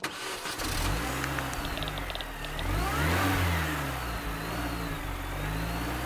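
A car engine revving up and down several times, then running steadily.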